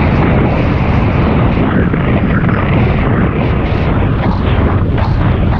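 Loud, steady wind rushing and buffeting over the microphone of a camera riding along on a moving bicycle.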